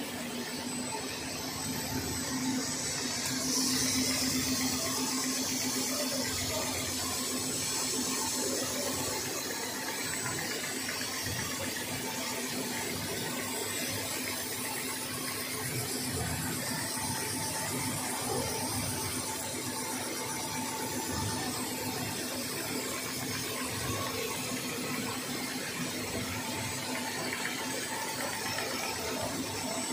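High-speed nonwoven slitting machine running: a steady machine whir with a low hum and a thin high whine, as the nonwoven web runs over the rollers and is slit into strips.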